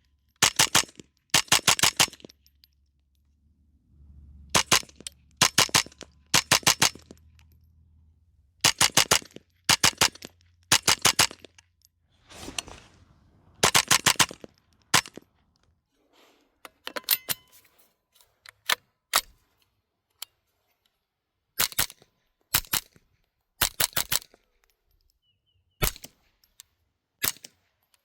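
A .22 LR semi-automatic rifle (Black Collar Arms Texas Typewriter on Ruger 10/22 parts) is fired in quick strings of several shots with short pauses between them. Toward the end it fires slower single shots and pairs.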